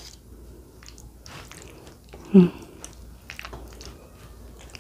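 Wooden fork and spoon tossing saucy spaghetti on a plate, with soft wet squishes and light clicks. About halfway through there is one short hummed vocal sound.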